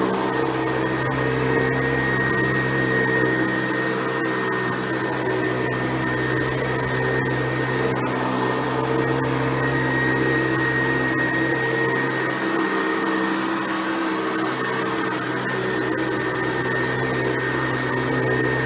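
Hoover Convertible U4349 upright vacuum cleaner with a 4.8-amp motor, running steadily while vacuuming, a constant hum with a thin high whine above it.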